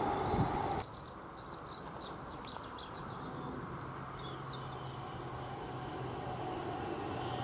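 The noise of a passing train, cut off abruptly just under a second in. Then small birds chirping, and the low steady drone of an approaching Class 70 V16 diesel freight locomotive growing slowly louder.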